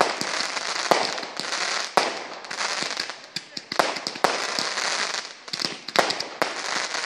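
Category 2/3 consumer fireworks firing in a rapid barrage: sharp bangs as shots launch and burst, roughly one or two a second, over a continuous hiss and crackle of burning stars and tails.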